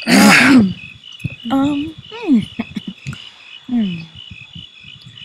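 Crickets chirping steadily, about three chirps a second. Over them a person's voice makes a loud wordless outburst at the start, then a few short wordless sounds whose pitch falls.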